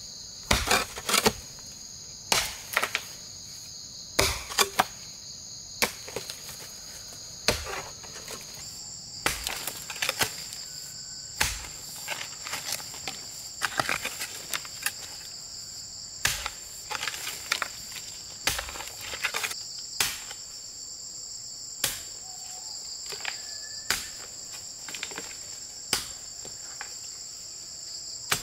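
Steady high-pitched insect chorus that shifts slightly higher about eight seconds in, broken by irregular sharp knocks and clicks, one every second or two, which are louder than the drone.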